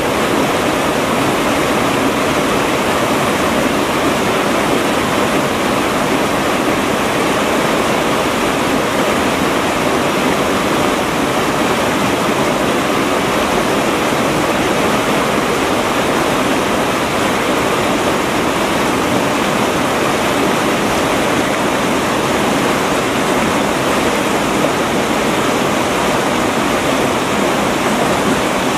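River water rushing steadily over rocks and rapids, an unbroken loud wash.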